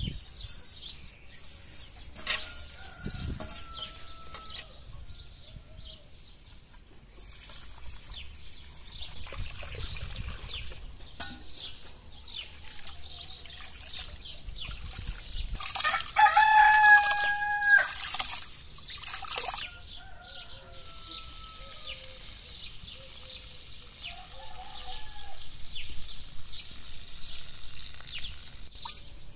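A rooster crows once, about halfway through, the loudest sound here. Around it, rice is swished and rubbed by hand in water in a steel basin, with light splashing and birds chirping.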